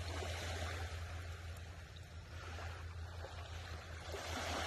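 Small waves washing on a beach: an even hiss, swelling slightly near the end, over a steady low hum.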